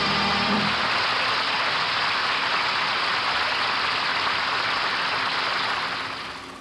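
The song's last music ends about a second in, leaving a steady hiss of soundtrack noise that fades out near the end.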